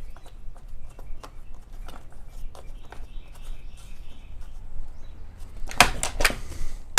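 Light clicks and knocks of plastic and metal parts being handled while the chainsaw's top cover is fitted, with a quick run of louder clicks near the end.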